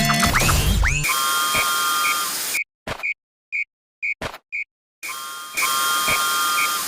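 Railroad crossing warning bell dinging about twice a second, an electronic 'kan-kan' signal. Behind it a hiss with steady held tones cuts off abruptly about two and a half seconds in, leaving the dings and a few sharp clicks, and returns near the end.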